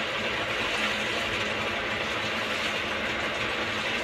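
Steady, unchanging mechanical hum and whir.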